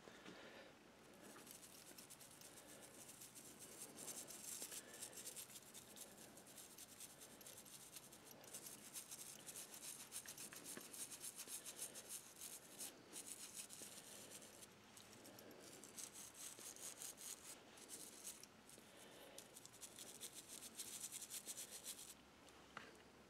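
Toothbrush scrubbing tarnish off a small brass model locomotive part: a faint, quick, scratchy back-and-forth rubbing with a few short pauses, stopping shortly before the end.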